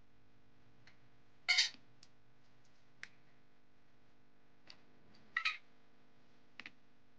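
Thin aluminium tealight cups and wax discs being handled: a few light clicks and two short scraping, crinkly bursts, about one and a half and five and a half seconds in, over a faint steady hum.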